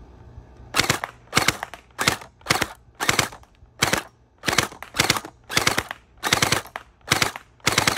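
Lightning Blaster electric gel blaster firing on full-auto in about a dozen short bursts, roughly two a second. Each burst is a quick rattle of several shots.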